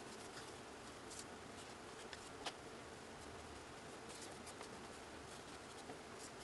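Faint strokes and light taps of a felt-tip marker drawing on a white board, heard as scattered small clicks over a steady low hiss, with one sharper tick about two and a half seconds in.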